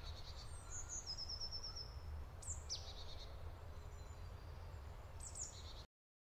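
Faint forest birdsong over a low steady rumble: high chirps, a quick trill of about eight notes about a second in, and a few more calls later, before the sound cuts off suddenly near the end.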